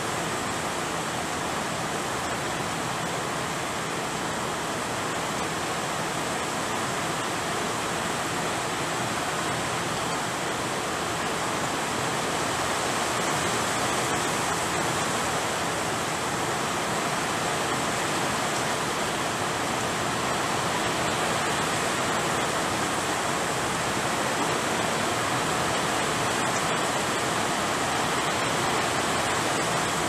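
Steady rain falling, an even hiss that grows slightly louder about halfway through.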